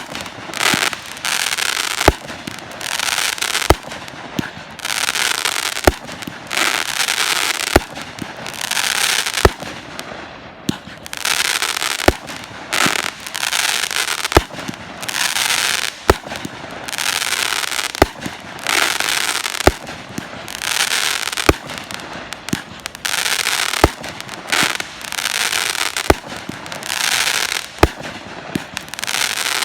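Fireworks bursting in a steady string: a sharp bang about every two seconds, each followed by about a second of crackling hiss.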